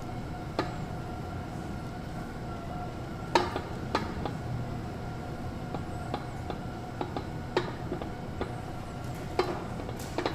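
Occasional light clinks and taps of kitchenware, about six in all, as egg wash is dabbed from a bowl onto puff pastry with a pastry brush, over a faint steady hum.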